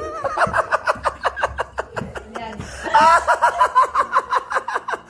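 A woman laughing in quick repeated pulses, in two bouts, the second louder, starting about three seconds in.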